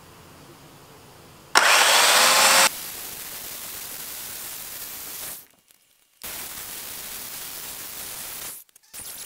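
Corded electric chainsaw running and cutting into a thick log round: a loud burst of about a second with a slightly falling pitch, then a steadier, quieter cutting noise that breaks off suddenly twice.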